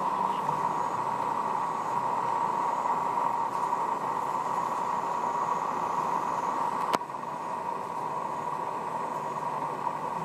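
Steady, even background noise with no distinct source, with a single sharp click about seven seconds in, after which the noise is a little quieter.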